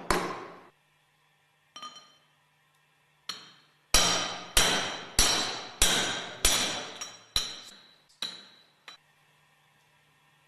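Plastic-faced hammer striking a steel driving pipe that presses a grooved ball bearing into a separator's centrifugal clutch drum. After one or two lighter taps, a regular series of about eight sharp blows comes roughly every 0.6 s, each with a short metallic ring.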